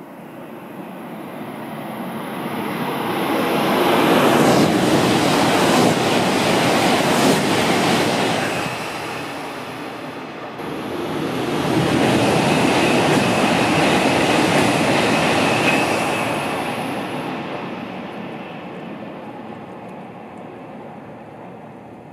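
Tohoku Shinkansen high-speed trains passing at speed: a broad rushing roar of air and rails swells to a loud peak, drops away, then swells and fades a second time. A faint high whine rides on the second pass.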